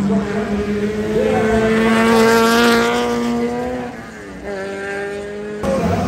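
Race car engine held at high, steady revs as the car comes through the corner. About four seconds in the note drops and quietens, then settles at a steady pitch again, and near the end it breaks off abruptly into another car's engine.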